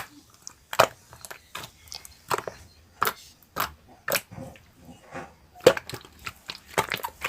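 Slime being squeezed and poked, giving irregular sharp clicks and snaps, about two or three a second.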